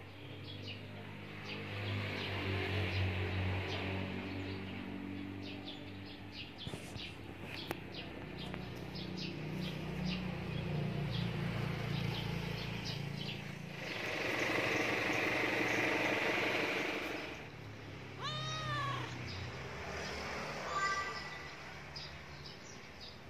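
Domestic cat meowing, with a louder, drawn-out call a little past the middle.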